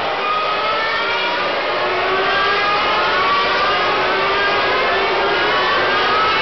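A pack of 2013 Formula One cars with 2.4-litre V8 engines at high revs, many engines overlapping and each rising in pitch as the cars accelerate out of the corners. The sound grows a little louder about two seconds in as the bulk of the field arrives.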